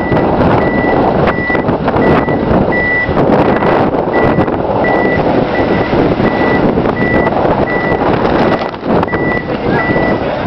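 LPG forklift truck reversing, its reverse alarm sounding a steady high beep nearly twice a second over the noise of its running engine.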